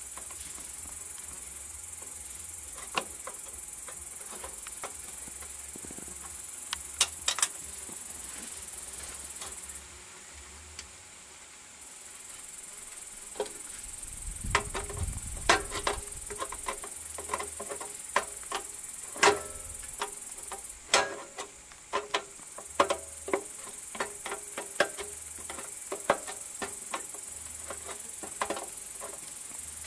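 Scattered sharp clicks and clinks of hand tools and metal parts being handled on a small engine, most frequent in the second half, over a steady high hiss. A brief low rumble comes about halfway through.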